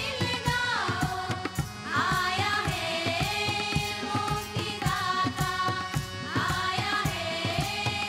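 A group of women singing a song together into microphones, with drums keeping a steady beat beneath the melody.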